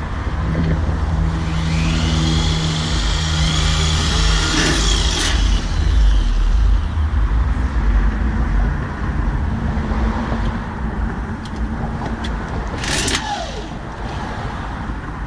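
A car engine running, with a steady low hum and a whine over it for the first few seconds, a sharp noisy burst near the end and a falling tone just after.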